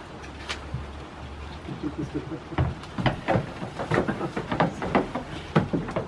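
Goats biting and crunching a red apple held out by hand: a quick irregular run of sharp crunches and knocks that starts about two and a half seconds in, over a steady hiss of rain.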